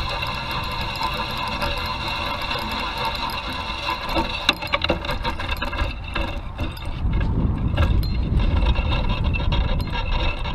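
Fishing reel being cranked steadily as a hooked rainbow trout is reeled in: a steady mechanical whirring rattle. A few sharp clicks come about four and a half seconds in, and a low rumble takes over in the second half.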